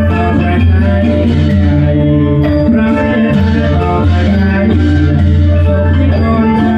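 Background music: an upbeat song with a steady beat, bass and plucked strings.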